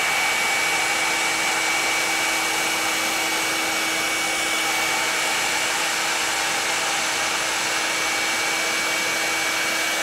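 Revlon One-Step Hair Dryer and Volumizer, an oval-barrel hot-air brush, running steadily on its lowest setting: a constant rush of air with a steady high whine.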